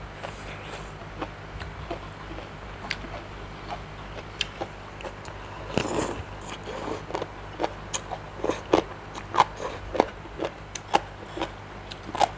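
A person eating seafood papaya salad with squid close to the microphone: chewing and biting, with many short wet clicks and smacks.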